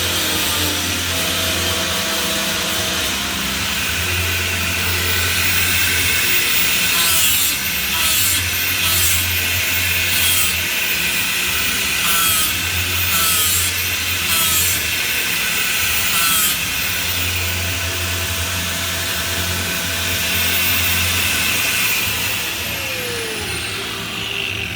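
Angle grinder grinding metal, with regular surges in pitch, then spinning down near the end.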